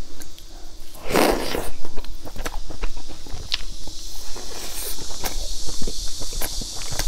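Close-miked eating: biting into and chewing a milk-dipped, sesame-topped cake, with wet mouth clicks and crackles. A louder noisy burst comes about a second in.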